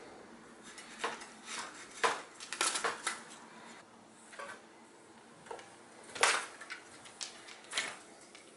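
Horizontal window-blind slats rattling and clattering in irregular bursts as a kitten pushes and moves between them, the loudest clatters about two-thirds of the way through and at the very end.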